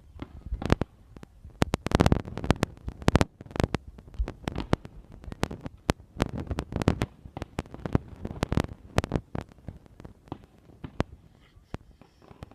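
Fireworks going off: a rapid series of sharp bangs and crackles, densest about two to three seconds in and again a few seconds later, thinning out near the end.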